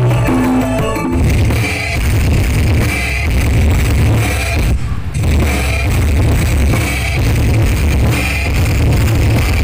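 Music played very loud through a large sound system of stacked subwoofer and speaker cabinets, heavy on bass, with a drum beat repeating about every second and a half: the system being pushed for a sound-pressure-level test.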